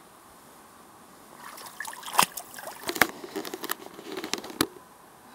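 Footsteps in rubber boots wading through shallow icy water and mud, sloshing and splashing, with sharp cracks as thin ice and dry brush break underfoot. They start about a second and a half in and die away just before the end.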